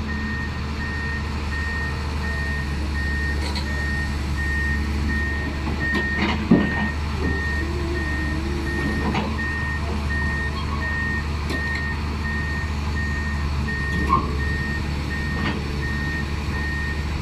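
Diesel engine of heavy loading equipment running steadily while a reversing alarm beeps about once a second. A few metallic clunks from the working machine, the loudest about six seconds in.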